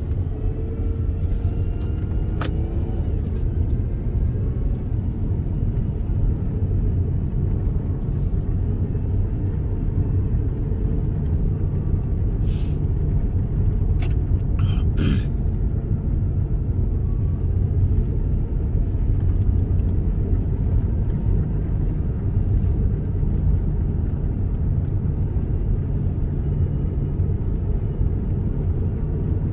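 A steady low rumble with a few sharp clicks scattered through it.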